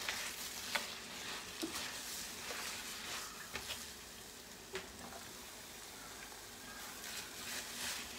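Spaghetti in a crab and prawn tomato sauce sizzling in a hot stainless-steel pot as it is tossed with tongs, with scattered clicks and knocks of the tongs against the pot.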